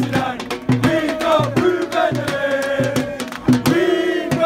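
A crowd of football fans singing a chant together, with rhythmic hand clapping at about three claps a second.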